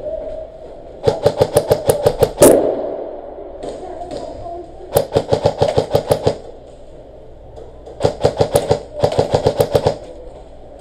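Airsoft gun firing fully automatic, in four short bursts of rapid snapping shots at about eight a second. One louder crack comes at the end of the first burst.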